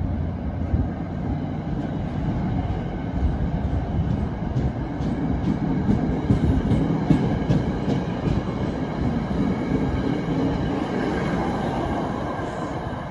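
NJ Transit commuter train's single-level passenger cars rolling past along the platform: a steady rumble of steel wheels on rail, with a run of light wheel clicks in the middle.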